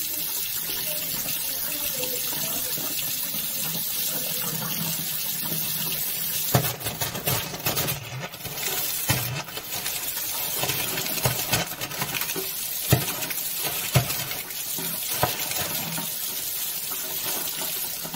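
Steady rushing hiss from a kitchen sink drain with gas gushing out of it, sounding like running water. Several sharp knocks and clicks come in the middle.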